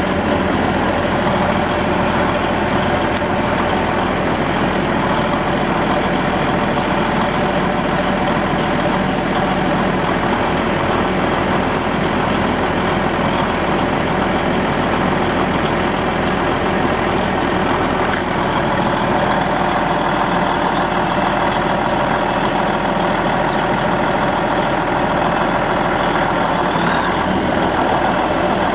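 Cummins NTA-855-A six-cylinder diesel of a 1994 Ford 9480 Versatile 4WD tractor running steadily, with no revving or change in speed.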